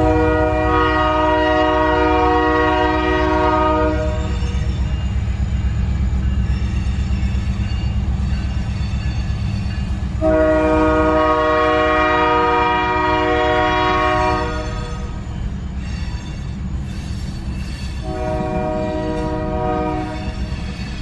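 Diesel freight locomotive's horn sounding at a grade crossing: two long blasts and then a shorter one, each a chord of several notes held steady. Under the blasts runs a steady low rumble.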